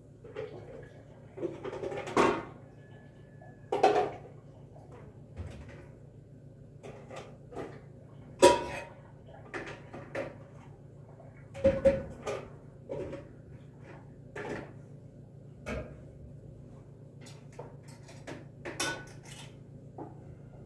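Metal bowls and pots being handled at a kitchen sink: about a dozen separate clanks and knocks, some ringing briefly, with the loudest clank about halfway through.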